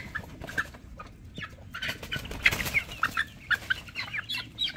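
A mixed flock of chickens, older hens and a rooster with young newly introduced birds, clucking and calling in short notes, busier from about two seconds in.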